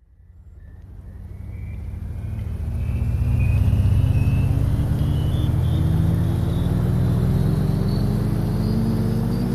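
Engine-like vehicle rumble fading in over about three seconds, then holding loud. A high whine and the low tones rise slowly and steadily in pitch, like a vehicle accelerating.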